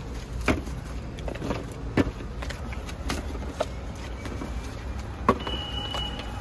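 A steel spoon knocks sharply against a steel pot and platter about five times as filling is scooped out, over a steady low rumble of street traffic. A brief high tone sounds near the end.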